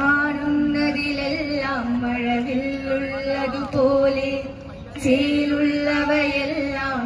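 Voices singing a slow, chant-like melody with long held notes, in two phrases, the second beginning about five seconds in.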